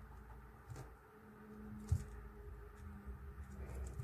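Faint scratching of a pen writing on a small paper label on a tabletop, with a few light ticks and one sharp tap about two seconds in, over a steady low hum.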